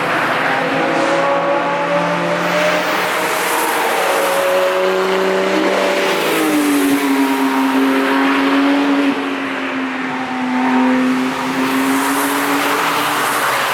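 Cars driving past at speed on a racetrack, engines revving, with overlapping engine notes rising and falling. One note drops in pitch about six seconds in, and the sound dips briefly about nine seconds in.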